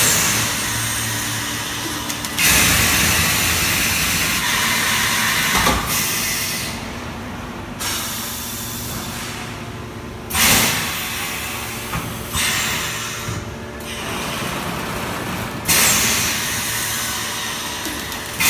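Positive-pressure vacuum thermoforming machine cycling: pneumatics release compressed air in several sudden loud hisses, each fading over a few seconds, over a steady low machine hum.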